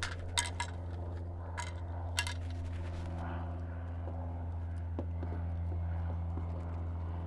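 A steady low mechanical hum with several sharp metallic clicks in the first couple of seconds, from hand tools and small fittings under the aircraft's nose as the lower cowling light is worked loose to reach the oil drain.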